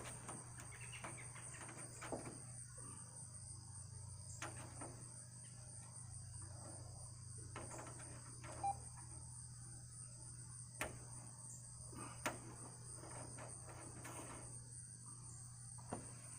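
Faint, steady high chirring of insects such as crickets, over a low steady hum, with a few sharp light clicks and knocks scattered through.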